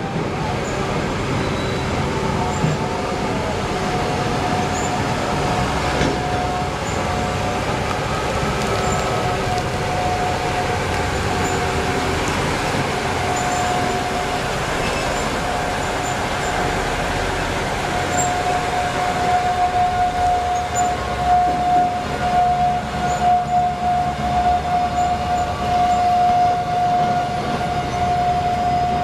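A giant BelAZ mining dump truck driving, its drivetrain running with a steady high whine over the engine noise. The sound grows rougher and more uneven near the end.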